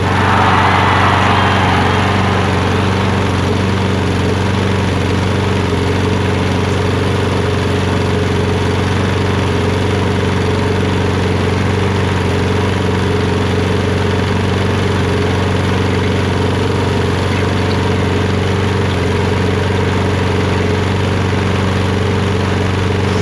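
Kohler XT675 single-cylinder lawn mower engine running steadily on its own. It keeps running after a quick carburetor cleaning cleared gel blobs that had been blocking fuel in the emulsion tube.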